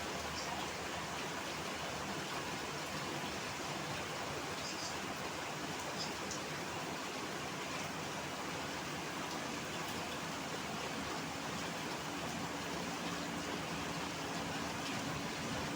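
Steady hiss of heavy rain falling. About two-thirds of the way through, the low hum of an approaching vehicle engine rises under it and grows louder near the end.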